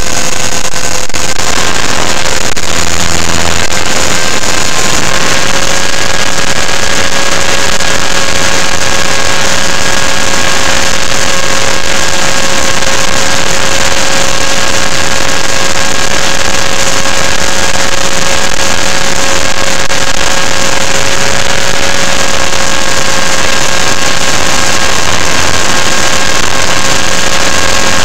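Align T-Rex 500E electric RC helicopter heard from its onboard camera in flight: a steady, loud whine from the electric motor and drive gears over a rush of rotor wash on the microphone. The whine's pitch steps up slightly a few seconds in, then holds steady.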